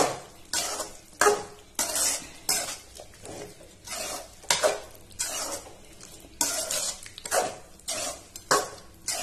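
A metal spoon stirring and scraping around a wide metal pan of thick chicken masala, in repeated strokes a little under two a second. The masala is stirred as it reduces so it does not catch on the bottom.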